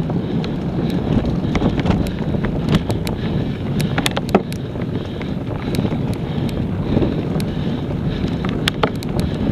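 Wind buffeting an action camera's microphone as it moves fast along a forest trail, a steady low rumble, with frequent sharp clicks and knocks from jolts to the camera.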